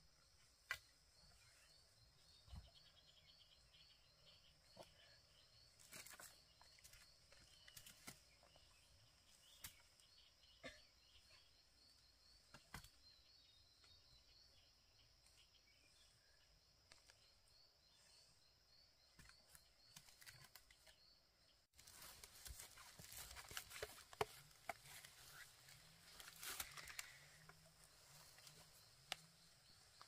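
Faint, irregular knocks and scrapes of a large knife digging in soil and of yam tubers being handled, over a steady high chirring of insects. About two-thirds through the sound cuts to louder, closer rustling and knocks.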